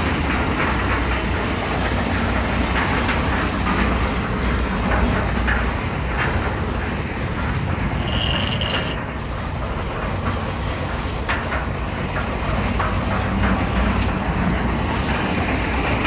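Steady low engine rumble mixed with road traffic noise, with a short high tone about eight seconds in.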